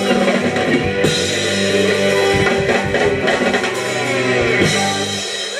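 Live electric blues band, electric guitars and drum kit, playing the closing chords of a song with cymbal crashes. The held low notes cut off about five seconds in as the song ends.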